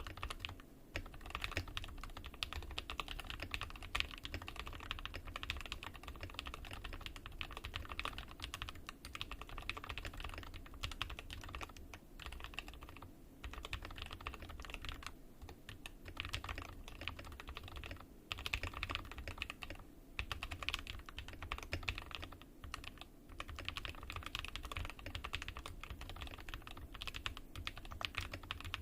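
Steady typing on a Glorious GMMK 2 mechanical keyboard fitted with hand-lubed AKKO Silver linear switches, switch pads and Cherry-profile keycaps. Rapid, creamy, thoccy keystrokes run on with a few brief pauses.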